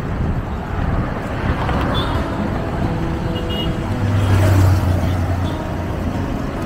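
Motor traffic on a busy road, a steady rush of passing vehicles. About four seconds in, one vehicle's low engine hum swells as it passes close.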